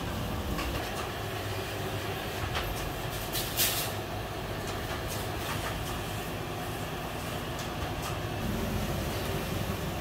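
Steady low machine rumble of a workshop, with a few light metal clicks as door handles are hung on a steel rack; the sharpest click comes about three and a half seconds in.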